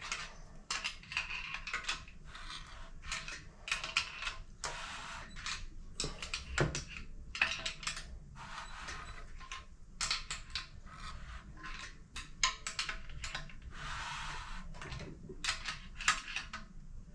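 Irregular light metallic clicks and rattles from a Triumph 1.5 short engine being turned over by hand, for a valve-in-motion cam timing check.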